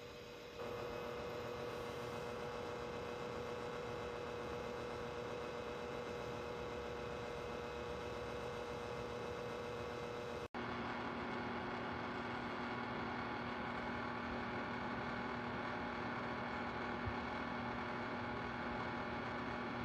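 Dreo oscillating ceramic fan heater running, its blower making a steady, even whoosh with a constant hum. The hum drops to a lower pitch after a brief cut about ten seconds in.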